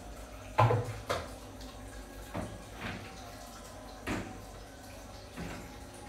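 Kitchen handling sounds: a string of about six light knocks and clatters as green plastic baskets and citrus fruit are picked up and set down, the loudest about half a second in.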